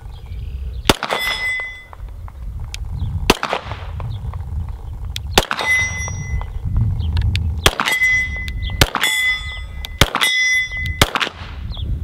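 About seven 9mm shots from a Glock 34 pistol, fired a second or two apart. Most are followed by the ringing ping of a steel target being hit downrange.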